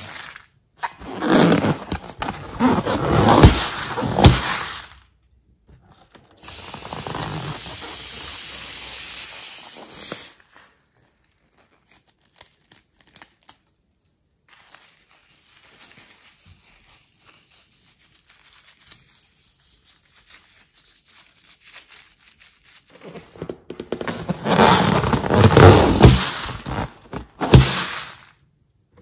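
Slime and slime-filled rubber balloons being handled, with squishing and crackling in two loud spells: one from about a second in to five seconds, and one near the end. Between them is a steady hiss lasting a few seconds, then a quieter stretch of faint crackles.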